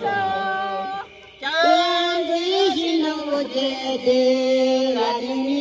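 A woman singing into a handheld microphone, holding long notes with a short break about a second in.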